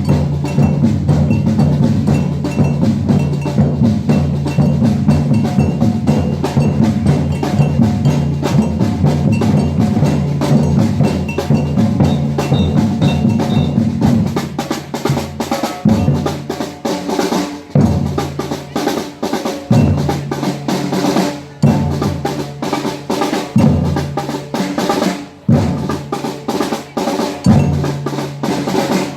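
Batucada ensemble of Brazilian drums, with snares and bass drums, playing a dense driving groove. About halfway through it thins out to a sparser pattern punctuated by a heavy low drum stroke about every two seconds.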